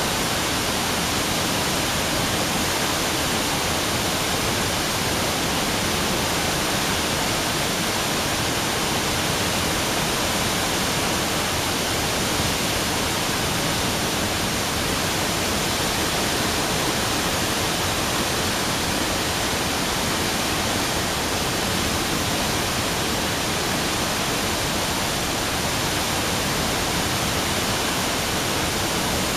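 Steady, unbroken rush of water from Nukui Dam's outlet gates, discharged in wide high-pressure jets.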